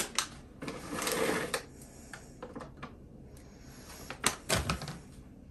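Plastic bag of nuts being handled and crinkled, with sharp clicks and a rustling stretch about a second in, then a couple of knocks with a dull thud about four and a half seconds in.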